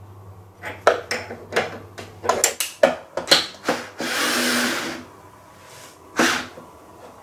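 Quick clicks and knocks of a router bit and router being handled on a wooden bench. About four seconds in comes a noisy whir lasting about a second, then another short knock near the end.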